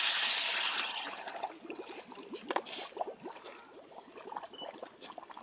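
Scuba diver's exhaled air bubbling up and breaking at the surface of open water in an ice hole as the diver submerges. A brief hiss opens it, then many small gurgling pops go on at a lower level.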